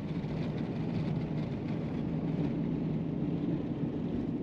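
A vehicle's engine and road noise while driving. The hum swells a little in the first second, then holds steady.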